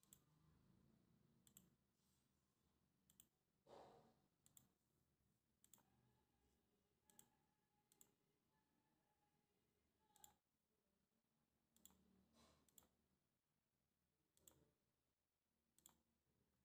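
Faint computer mouse clicks over near silence, about a dozen, irregularly spaced a second or so apart, as line points are placed in a CAD sketch.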